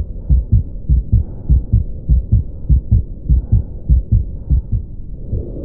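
Auscultation recording of a heart with a patent ductus arteriosus: a quick, even series of low heartbeat thuds with a murmur running between them. About five seconds in, a louder continuous whooshing joins the beats.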